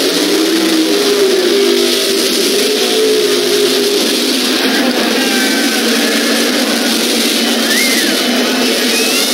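Drag-racing car engines running at the strip: a steady, loud din, with engine tones that waver in pitch over the first few seconds.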